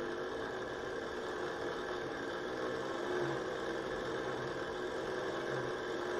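Hand-cranked insulation tester (megger) being cranked, its generator and gearing giving a steady whir that wavers slightly in pitch. It is building the test voltage across a metal oxide varistor.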